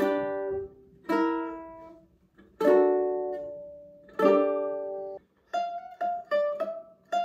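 Ukulele strummed: four chords, each left to ring and fade, about a second and a half apart, then from about five and a half seconds in a run of short, quickly stopped notes, about three a second.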